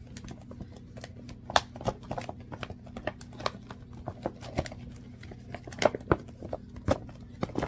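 Stiff clear plastic sheeting of a bag-organizer cover being unfolded and handled, giving irregular crackles and crinkles. A steady low hum runs underneath.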